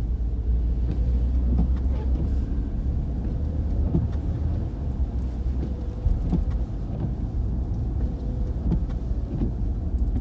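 Car driving on a snowy road, heard from inside the cabin: a steady low rumble of engine and road noise, with a few small knocks and rattles.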